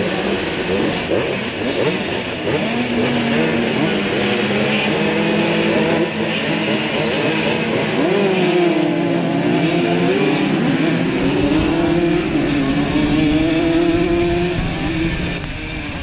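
A field of two-stroke Simson-engined pitbikes at a race start: engines running together and revving in rising and falling sweeps, the nearest bike's engine loudest, as the pack launches and accelerates away in the second half.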